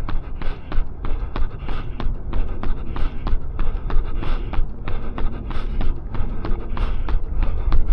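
A runner's footfalls at a fast, even cadence of about three steps a second, over a steady low rumble.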